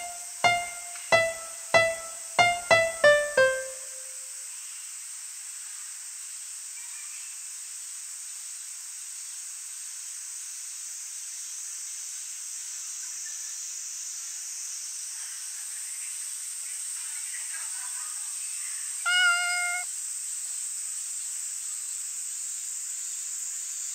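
A short run of single piano notes, about eight of them in the first few seconds, then a soft steady hiss. Near the end a cat gives one meow lasting under a second.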